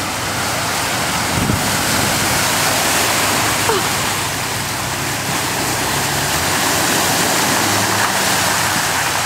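Hummer H3 plowing through a deep muddy water hole: a steady rush of splashing water and mud, with the SUV's engine running underneath.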